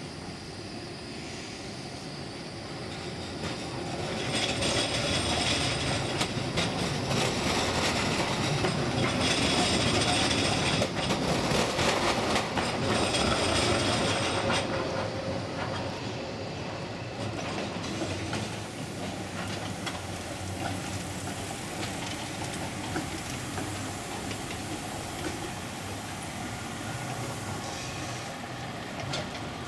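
Tram approaching and passing on a curve, its wheels clattering over the track and squealing, loudest in the first half, then fading into a steadier rumble of rolling trams and road traffic.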